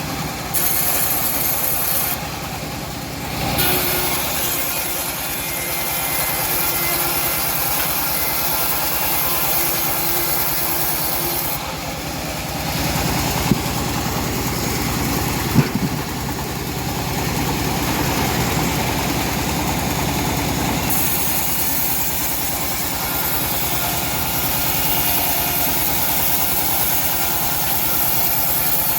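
Homemade engine-driven bandsaw running steadily while it saws through a teak log. Two short knocks come about two seconds apart halfway through.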